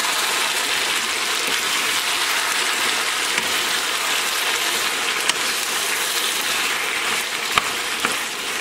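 Chicken pieces and chopped tomatoes sizzling steadily in oil in a nonstick pan over high heat as a wooden spatula stirs them, with two light knocks of the spatula against the pan in the second half.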